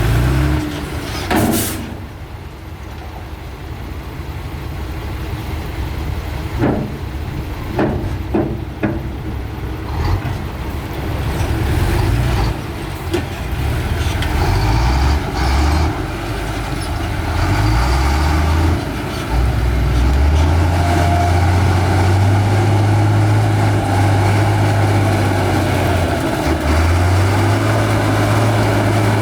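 Heavy diesel engine of earthmoving machinery working, its pitch stepping up and down under changing load, then running steadier and higher in the last third. A few sharp knocks in the first ten seconds.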